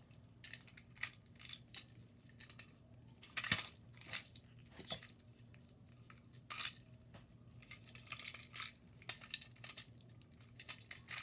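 Quiet rustling and crinkling of plastic packaging wrap, with scattered small clicks and taps as wrapped small toy-train parts are unwrapped and handled. One sharper click about three and a half seconds in.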